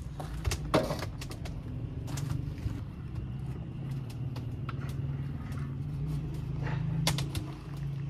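Cooking sounds: a few sharp clicks and knocks of utensils or pots over a steady low rumble. The loudest knocks come just under a second in and again about seven seconds in.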